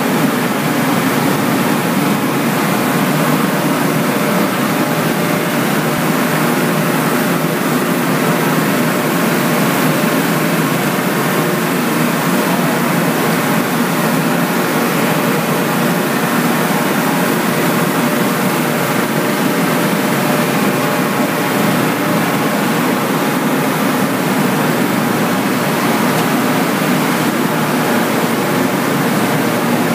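Steady, loud drone of industrial plant machinery running: an even rush of noise with a low hum and several faint steady tones, without any distinct knocks or changes.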